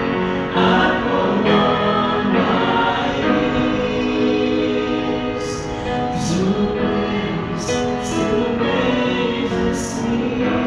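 Small mixed vocal ensemble of men and women singing a gospel song together into microphones, with crisp 's' sounds of the lyrics standing out in the second half.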